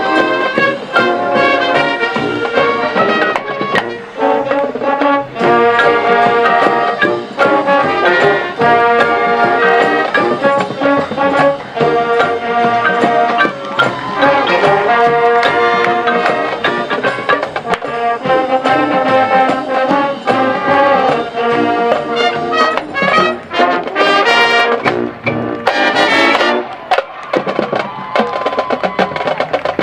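A high school marching band playing its competition show, led by the brass: trumpets and trombones sound sustained chords that change every second or two over percussion strokes.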